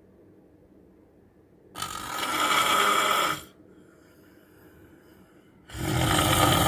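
A man snoring heavily: one long loud snore about two seconds in, and another beginning near the end, about four seconds later.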